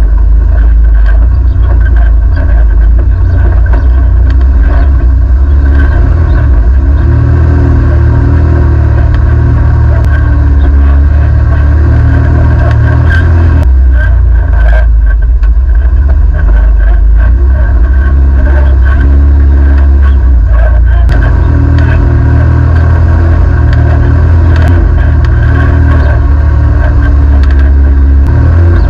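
Side-by-side UTV engine running loud and close, heard from on board while driving a trail, its note rising and falling with the throttle: higher from about seven seconds in and again from about twenty-one seconds in. Scattered clatter and knocks from the vehicle over the rough ground.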